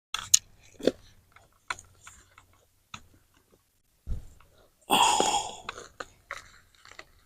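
Hands digging through loose potting soil, with scattered rustles and small taps, a dull thump about four seconds in and a longer scraping rustle around five seconds.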